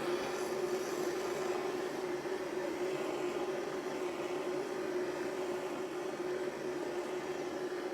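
Small gas soldering torch burning steadily, its flame giving a constant hiss with a steady low tone underneath, while it heats the joint area of a lead water pipe to soften the lead for soldering.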